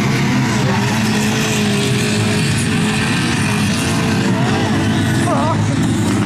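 Several racing cars' engines running hard together, a loud steady engine drone. Through the middle, one engine's note holds and wavers slightly.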